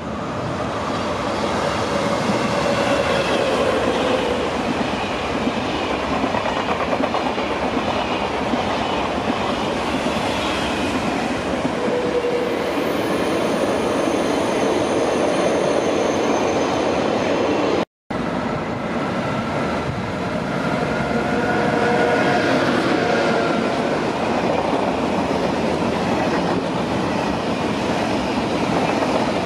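TGV high-speed trains running along the tracks: steady wheel-on-rail noise with clatter over the rail joints and thin whining tones that shift in pitch. About two thirds of the way through, the sound cuts out for an instant, then a TGV Duplex passes close by.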